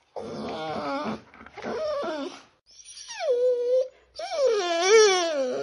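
Puppy vocalizing at its own reflection in a mirror: two short, rough growly yowls, then a high whine that drops in pitch and holds, and a long wavering howl near the end.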